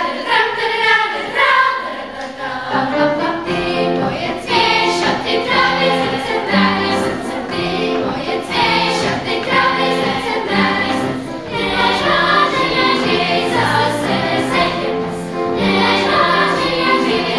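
Children's choir singing a song, with low accompaniment notes held beneath the voices.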